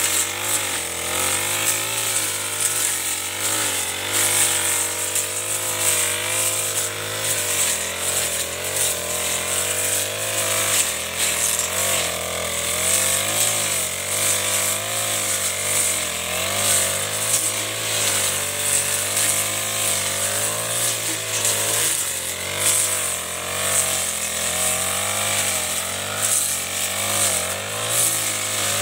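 Four-stroke backpack brush cutter running continuously while cutting tall grass and weeds, its engine pitch rising and dipping as the cutting head works through the growth.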